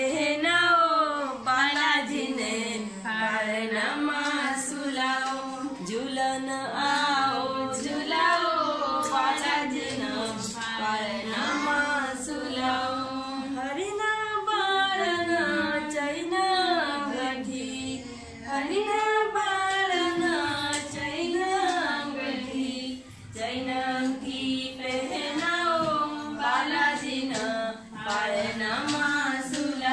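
Women singing a palna, a traditional cradle song in the Rangari language, a slow melody sung without break.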